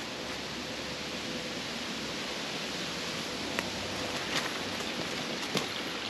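Shallow creek water running over rocks, a steady rushing hiss, with a few soft steps in dry leaf litter.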